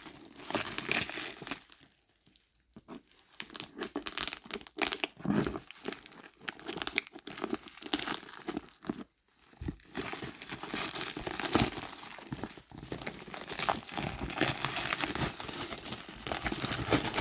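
Plastic wrap crinkling and packing tape tearing as a wrapped cardboard box is pulled open by hand, in irregular rustling spurts with a couple of brief pauses.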